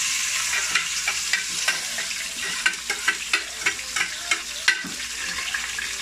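Chopped onions sizzling in hot oil in a steel pot, just added. A metal spoon clinks against the pot about a dozen times as they are stirred.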